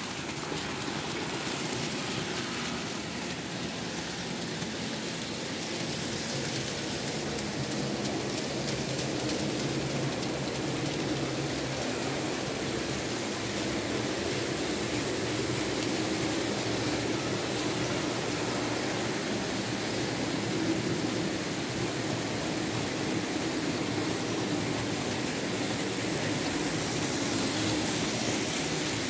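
Märklin H0 model train running: the electric motor of a BR 23 steam locomotive model whirring and its wheels and wagons rolling on the metal track, a steady rumbling hiss that grows slightly louder toward the end.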